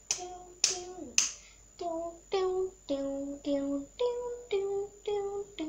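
A young girl singing a wordless tune in short separate notes, about two a second, each on a different pitch. The first few notes start with a sharp clicking attack.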